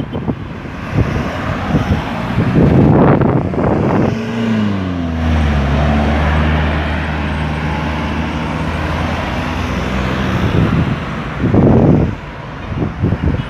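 Road traffic with wind buffeting the microphone in gusts. About four seconds in, a heavy vehicle's engine hum drops in pitch as it slows, then holds a steady low drone for several seconds before fading out.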